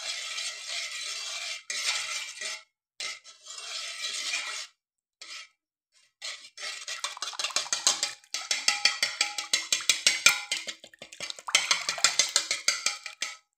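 Small wire whisk beating a thin semolina-and-milk mixture in a metal pot. First a scraping swish, then, after a brief pause, a long run of rapid metallic clicks as the whisk strikes the pot's sides and bottom.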